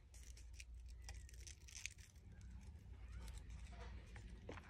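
Faint rustling and scattered light ticks of a fringed paper strip being rolled onto a slotted quilling tool.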